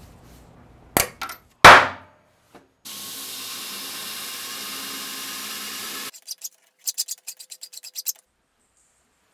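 Workshop tool sounds: a sharp knock and then a louder one, a steady rubbing noise for about three seconds, then a quick run of clicks.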